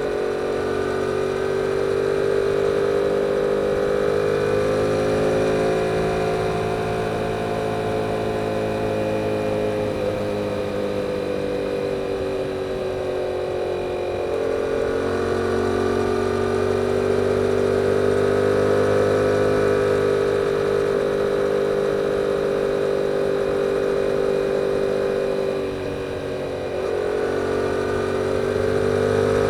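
2022 Yamaha R7's 689 cc parallel-twin engine through its stock exhaust, under way with the engine note slowly rising and falling. About 26 seconds in the note dips briefly, then picks up again.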